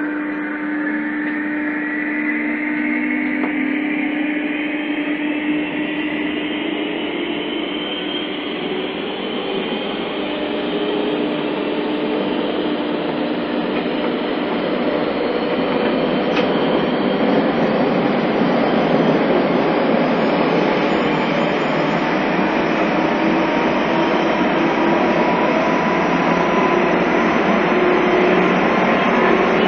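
Onboard sound of a JR East 201 series chopper-controlled electric train accelerating. Its motor whine climbs steadily in pitch, and the rail and running noise grows louder as speed builds.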